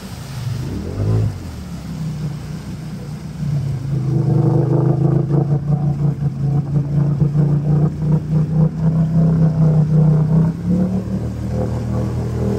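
Off-road vehicle engine revving briefly about a second in, then running hard and steady from about four seconds, with a shift in pitch near ten and a half seconds. A clatter runs over the engine during the steady stretch.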